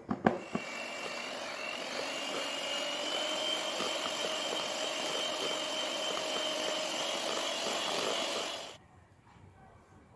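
Electric hand mixer running steadily, its beaters whipping cream and mascarpone together in a glass bowl, after a few knocks at the start; the motor stops abruptly about a second before the end.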